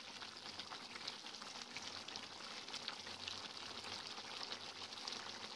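Bone-in beef kala bhuna sizzling and bubbling gently in an open pan, a steady soft crackle. The meat is cooking in the water it has released, with no water added.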